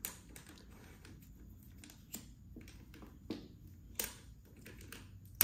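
Small clicks and taps from fingers handling the quick-release clamp and plate on a Benro travel tripod's ball head. About five short clicks come a second or so apart over a low background.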